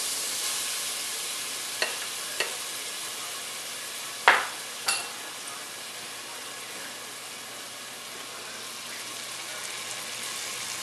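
Blended garlic and ginger sizzling in hot sesame oil in an aluminium pot, a steady hiss that grows a little quieter midway. A few sharp clicks of the spatula against the pot, the loudest about four seconds in.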